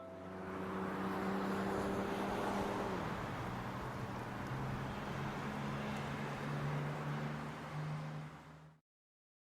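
Motor vehicle engine running, with a rushing noise over a low engine hum; the engine note drops about three seconds in, and the sound fades out near the end.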